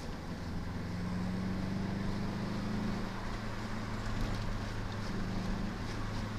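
1998 Subaru Impreza WRX STi's turbocharged flat-four engine running as the car drives along, heard from inside the cabin. Its note rises a little and falls back a couple of times over road and wind noise.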